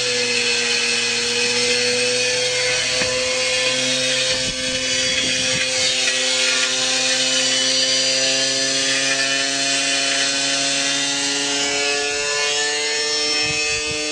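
Washing machine spinning at high speed with a heavy load inside, giving a steady whine that rises slowly in pitch, over grinding and rattling, with scattered knocks as the machine shakes itself apart.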